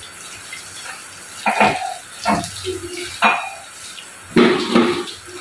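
Tap water running into a stainless steel sink as leafy greens are rinsed under the stream, with several short splashes and knocks as the leaves are handled.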